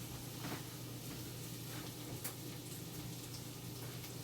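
Quiet kitchen background: a steady low hum with a few faint light ticks and taps.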